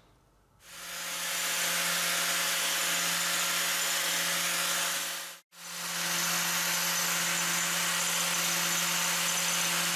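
Angle grinder mounted on a metal shaper, running steadily with a hum and a hiss as its wheel surface-grinds a hardened steel roller on a light 2 thou cut. It starts about half a second in and cuts out for an instant about halfway before carrying on.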